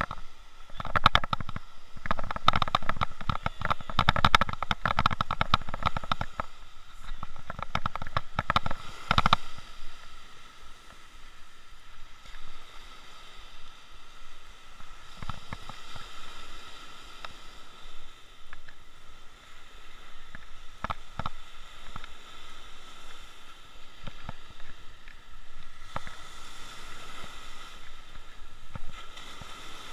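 Spinning reel cranked to play in a hooked tailor on a light bream rod, with surf washing on the shore. The cranking is busiest and loudest for the first nine seconds or so, then the sound settles to a quieter steady wash with a few clicks.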